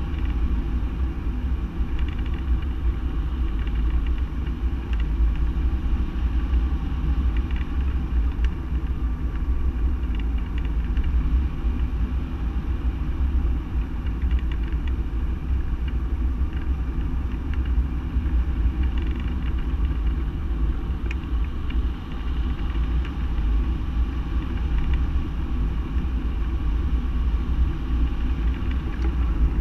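Wind rushing over the microphone of a camera mounted on a hang glider's wing in flight: a steady low rumble.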